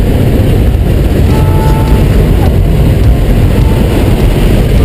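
Steady, loud rush of engine and wind noise inside a small propeller plane's cabin with the side door open at jump altitude.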